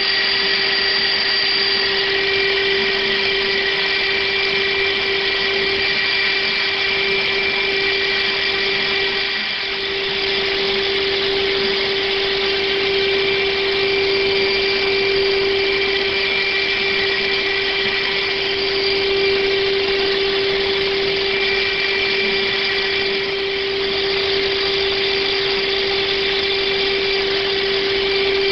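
Desktop CNC PCB milling machine isolation-routing copper tracks on a circuit board: a steady high-speed spindle whine over a constant cutting hiss. It dips slightly in loudness twice.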